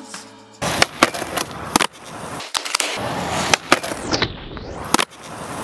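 Skateboard wheels rolling on concrete, broken by several sharp clacks of the board popping and landing, while the board grinds along a low metal flat bar.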